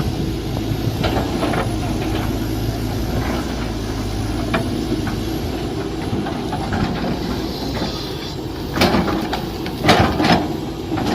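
Mini excavator engine running steadily, with sharp knocks and clanks from the machine's work: one about halfway through and a louder cluster near the end.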